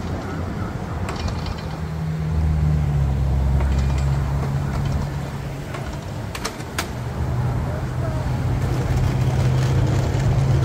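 A motor vehicle's engine running close by, a steady low hum that grows louder about two seconds in, with a few sharp clicks around the middle.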